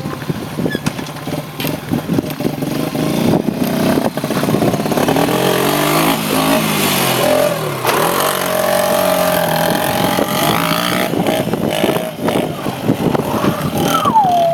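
Small off-road bike engine revving as it rides past, its pitch rising and falling through the middle, loudest for several seconds.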